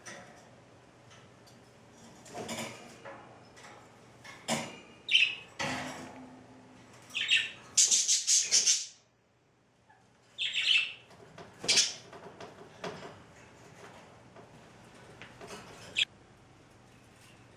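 Budgie chirping and calling in short, scattered bursts, with a denser run of chirps about eight seconds in.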